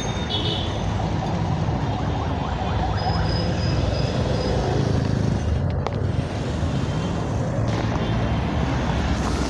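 Steady road and traffic noise heard from a moving cycle rickshaw: a continuous low rumble of wheels on the road and surrounding motor traffic, with a few faint brief high tones.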